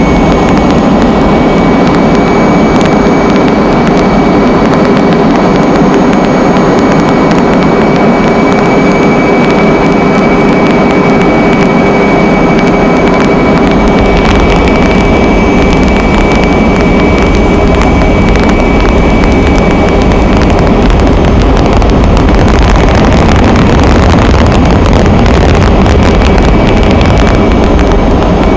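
Loud, steady drone of an aircraft engine heard from on board, with rushing wind and a steady high whine on top. The low rumble grows somewhat stronger in the second half.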